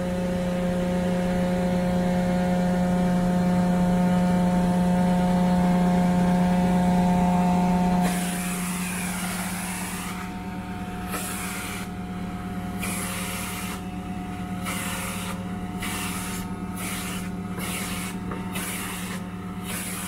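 Truck-mounted carpet-cleaning machine running steadily while its vacuum draws through an upholstery extraction tool on a fabric couch cushion. About eight seconds in the hum drops. Then a rushing hiss cuts in and out with each stroke of the tool, the strokes coming quicker near the end.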